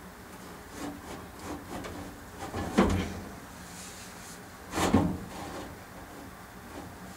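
Sheet-metal blower housing with its new motor being slid and lined up into the furnace cabinet: scraping and rubbing, with two loud clunks about two seconds apart near the middle.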